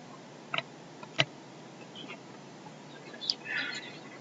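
Computer mouse clicks: a quick double click about half a second in and a sharp single click just after a second. Near the end comes another click followed by a brief rustling sound.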